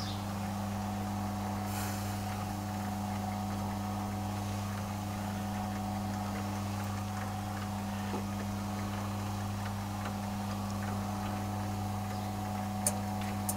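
Electric rotisserie motor of a charcoal grill humming steadily as it turns the kebab skewers through their gears. A few sharp metal clicks near the end, from tongs against the skewers.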